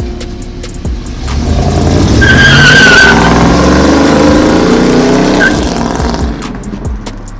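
A car's engine swells up loud and falls away again with a falling pitch, with a short tire squeal near the peak about two to three seconds in.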